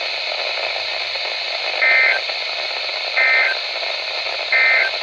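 Weather radio receiver hiss broken by three short, identical two-tone digital data chirps, evenly spaced about 1.3 seconds apart. These are NOAA Weather Radio SAME end-of-message bursts, closing a Required Weekly Test broadcast.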